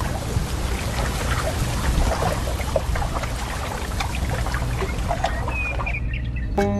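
Steady rain with a low rumble of thunder: a continuous hiss of scattered patter. It stops abruptly near the end, where a pitched, sustained sound begins.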